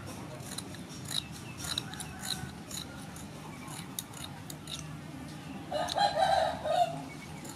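Kitchen scissors snipping off the fins of a sole fish, a run of irregular sharp clicks. About six seconds in, a rooster crows once, louder than the snipping, for about a second.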